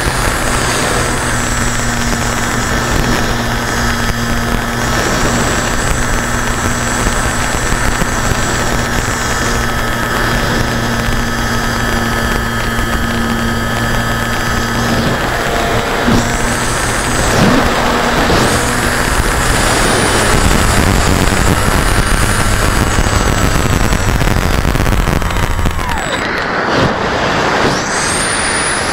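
Motor and propeller of an RC model aircraft, recorded by a camera on board and mixed with wind noise, running steadily at cruise. The pitch swings with throttle changes about 16 seconds in, then drops and climbs again near the end.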